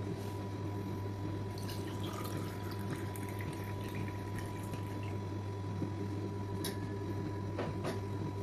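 Coconut water pouring through a small metal strainer into a glass, splashing as the glass fills. A steady low hum runs underneath, and there are three sharp clicks near the end.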